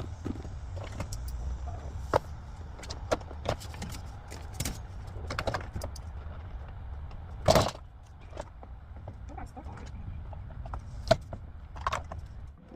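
A plastic door trim piece on a car's door panel being pried and pulled loose by hand: a string of irregular clicks, knocks and rattles. The loudest knock comes about seven and a half seconds in.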